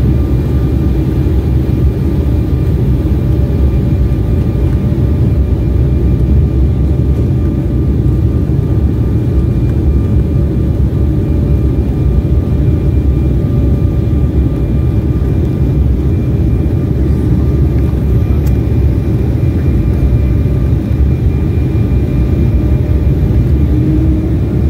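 Cabin noise of an Embraer 175 twin-jet on final approach: a steady rumble of airflow and engines with a faint steady whine above it.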